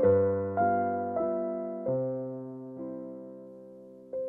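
Background music: piano playing soft chords, struck notes that fade away; the chords change a few times, then one chord is left to die away before a new note sounds near the end.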